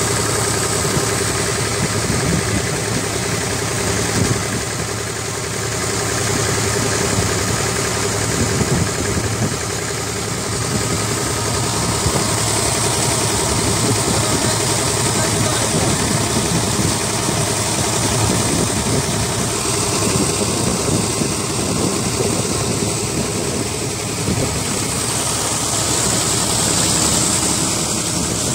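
Steady drone of an engine running tube-well pumps, mixed with water gushing from two outlet pipes into a concrete channel.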